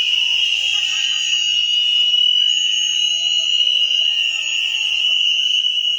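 A large crowd blowing whistles all at once, merging into one continuous high-pitched tone held without a break, with a fainter, higher band above it.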